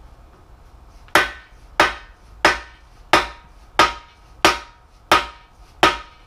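Hammer blows on the end of a long bearing-driver bar, eight strikes at an even pace of about one and a half a second, starting about a second in, each with a short metallic ring: a balance shaft bearing being driven into its bore in a 3.7L engine block.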